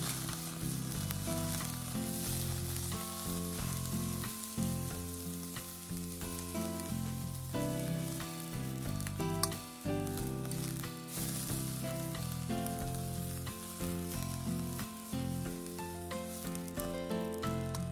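Food sizzling as it fries in a hot pan, with background music playing under it.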